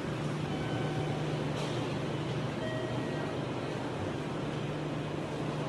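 Enoden electric train running, a steady low hum over rumbling noise, with a sharp click about a second and a half in and a few faint brief squeals.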